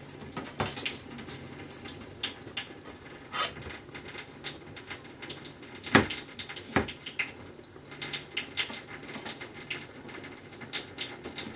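Kitchen prep at a sink: scattered light clicks and taps of hands and utensils on vegetables, with two louder knocks about six and seven seconds in, over a faint water-like hiss.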